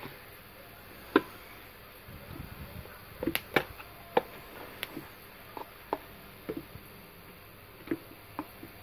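Irregular sharp plastic clicks and taps from a Samsung Galaxy S5 being handled, about a dozen spread unevenly over several seconds, the loudest about a second in.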